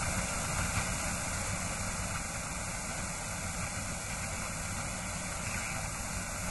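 A steady hiss of television-style static noise with a low rumble beneath it, holding even throughout.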